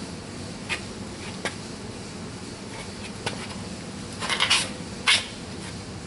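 A few light clicks, then two short scraping rasps about four and five seconds in, over a steady low hum: 220-grit emery cloth and tools being handled before sanding the crankshaft seal surface.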